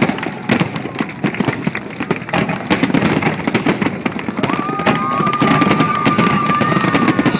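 Fireworks shells bursting in quick succession, a dense run of booms and crackles. A long steady high whistle comes in about halfway through.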